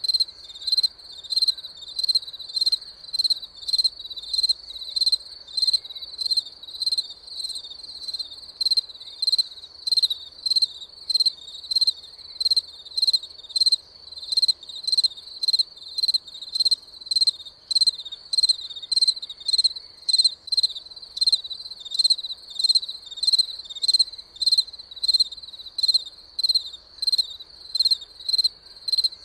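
A cricket chirping steadily, a short high-pitched chirp about twice a second in an even rhythm.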